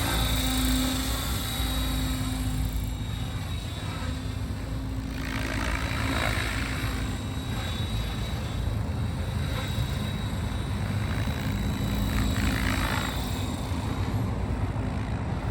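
Electric Synergy 696 RC helicopter flying, its main rotor and motor giving a steady whir that shifts slightly in pitch as the throttle and collective change.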